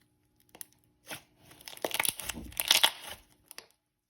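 Thick slime being handled by hand, making crackling bubble pops: a few isolated clicks at first, then a busier run of pops through the middle and second half.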